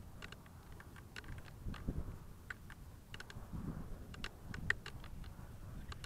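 Faint low wind rumble on the onboard camera microphone of a grounded FPV plane sitting in grass, with scattered small irregular clicks and ticks, about two or three a second; the sharpest click comes about three-quarters of the way in.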